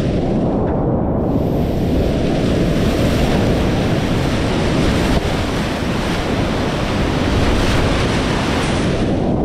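Loud, steady rush of whitewater in a steep creek, with wind buffeting the microphone.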